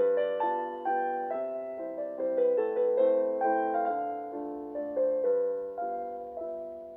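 Background piano music: a slow, gentle melody of single notes over soft chords, each note struck and left to fade.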